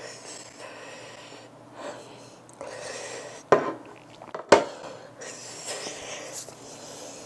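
A woman breathing hard and sniffing in waves through the burn of an extremely spicy peanut. Near the middle come two sharp knocks about a second apart as a smartphone is set down on a wooden table.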